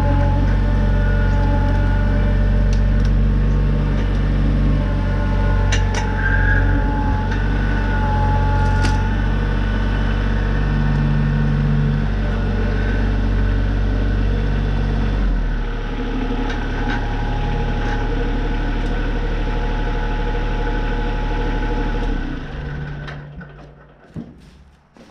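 Tractor engine running steadily, throttled down about fifteen seconds in, then shut off near the end and winding down to near quiet, with a few knocks as it stops.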